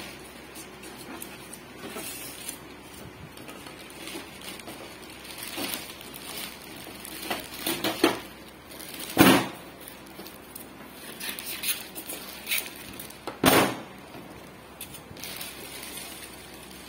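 Crinkling and rustling of clear plastic wrapping being handled and pulled about on a glass-top gas stove, with two louder sharp bursts of handling noise, about nine and thirteen seconds in.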